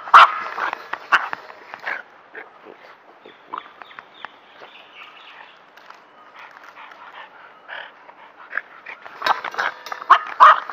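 Dogs barking, a few loud barks at the start and more near the end, with faint scattered clicks in between.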